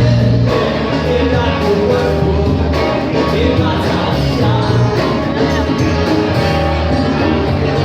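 A rock band playing live, with guitars and a full, steady band sound.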